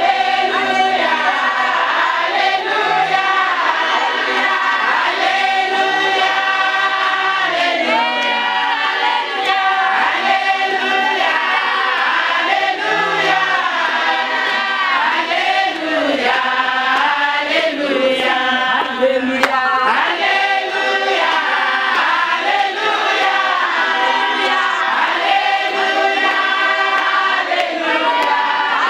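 A large congregation of women singing a church song together in Shona-style choral gospel singing, the many voices going on steadily and loudly without a break.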